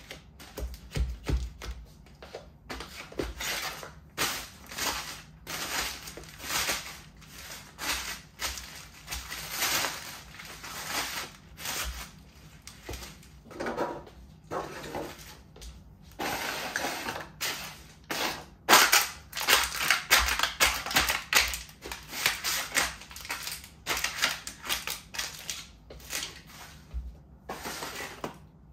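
Crumpled paper, small cardboard boxes and plastic packaging crushed under bare feet on a floor: a dense, irregular run of crinkling and crackling, loudest a little past the middle.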